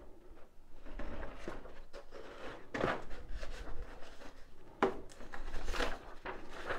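Paper instruction sheets rustling as they are handled, lifted and turned over, in several short rustles; the loudest come about five and six seconds in.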